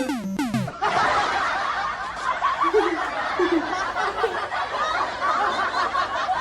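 A few quick falling cartoon-style tones. Then, from about a second in, a dense canned sound effect of many people snickering and chuckling at once.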